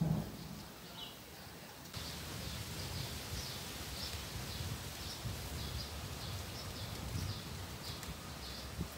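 A bird calling over and over with short high chirps, over a steady low background noise outdoors. A single low thump right at the start.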